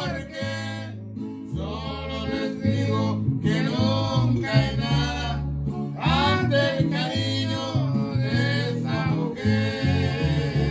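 A Spanish-language song: a man singing over guitar accompaniment, with low bass notes changing under the melody. The sung phrases break off with short gaps between lines.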